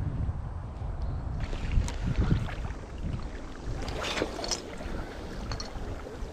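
Wind buffeting the microphone with small waves sloshing against breakwater rocks. There are two low bumps about two seconds in and a brief washing splash near the middle.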